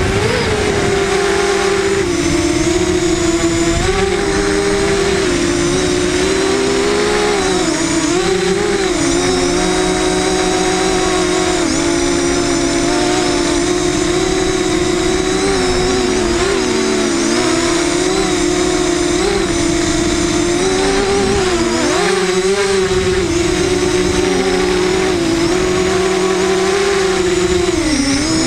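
FPV racing quadcopter's electric motors and propellers whining steadily at high speed, the pitch dipping and rising again every few seconds with changes of throttle.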